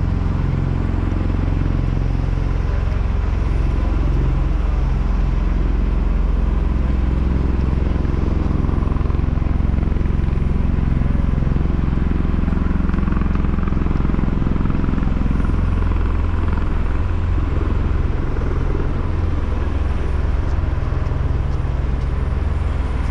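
Steady low drone of an aircraft in flight, a deep engine and rotor hum with a faint wash of crowd voices underneath.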